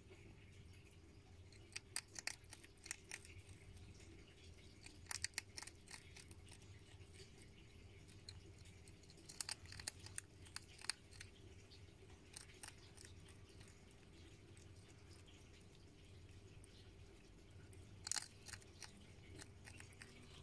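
A hedgehog eating dry pellet food from a bowl: clusters of sharp, crisp crunching clicks come in bursts every few seconds over a faint low hum.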